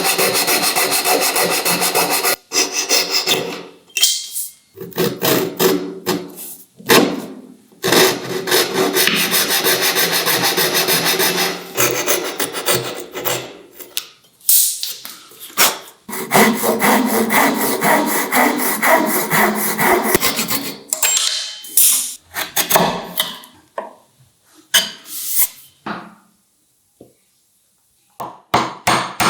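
Wood being sawn, in three long stretches of a few seconds each with shorter strokes and sharp knocks between them.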